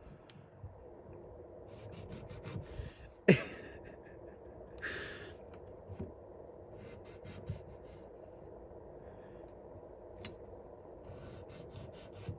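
A lawn mower blade slicing cherry tomatoes on a plastic tray: soft clicks and taps as the steel edge cuts through and touches the plastic, with one sharp knock about three seconds in. A short breathy hiss comes near the middle.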